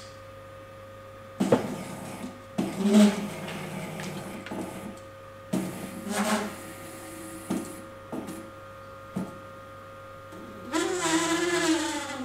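Stepper motors of a 3D printed six-axis robot arm whirring in a series of short moves, the pitch wavering as they speed up and slow down, over a steady hum from the motors.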